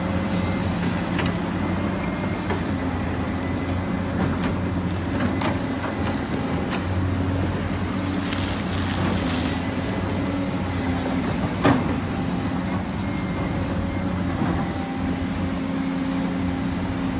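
Heavy construction machinery engine running steadily, with scattered metallic knocks and one louder clank a little past halfway.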